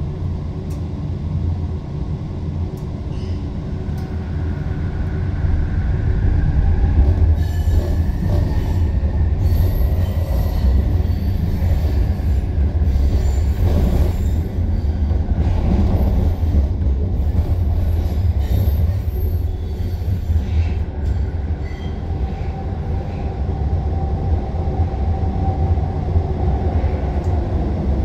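A Vancouver SkyTrain car, driven by linear induction motors, running with a steady low rumble. A whine rises and then fades, and the wheels squeal through the curves and switches as the train pulls into a station.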